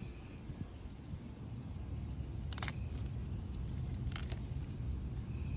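Outdoor garden ambience: short high bird chirps every second or so over a steady low rumble, with two sharp clicks about two and a half and four seconds in.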